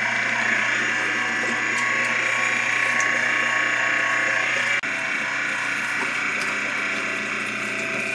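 Heavy-duty 1.5-horsepower electric meat grinder running steadily while cooked meat scraps are pushed down into its feed tube. The level drops slightly and abruptly about five seconds in.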